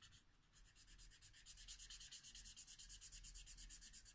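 Faint, quick back-and-forth shading strokes of a drawing tool on paper, about nine a second, filling an area in solid black, with a brief pause just after the start.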